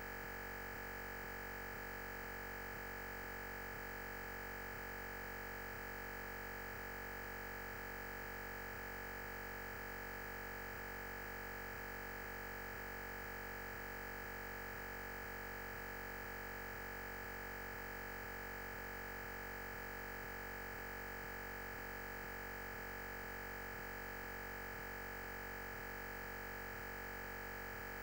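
A steady, unchanging electronic tone over a constant hiss, with no voice: the lecture's sound is missing from the recording and a fixed noise signal stands in its place.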